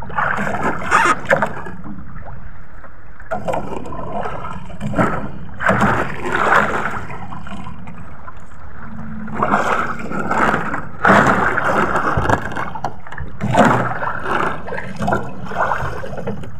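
Water splashing and sloshing in irregular bursts beside a small outrigger boat as a hooked skipjack thrashes at the surface while being hauled in on a handline, over a steady low rumble.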